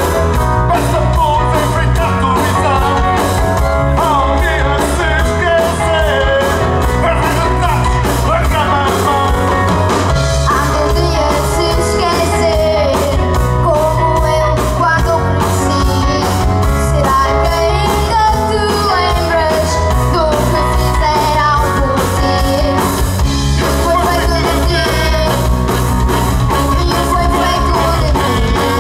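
Live band playing with sung vocals through microphones: electric guitars, electric bass and keyboard over a steady beat. The song goes on without a break.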